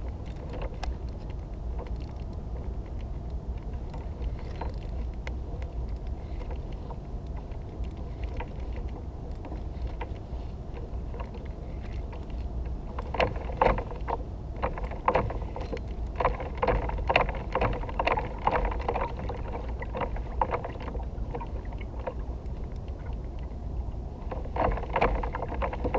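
Steady low wind-and-water rumble, then from about halfway through, runs of rapid clicking and whirring from a fishing reel being wound against a hooked cobia, breaking off briefly and starting again near the end.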